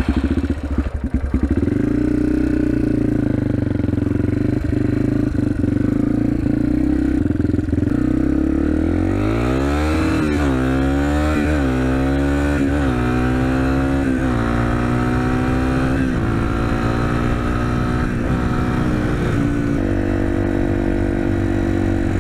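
Dirt bike engine running at low revs, then from about nine seconds in accelerating hard and shifting up through several gears, each gear a rising pitch cut off by the next shift, before settling into a steady cruise.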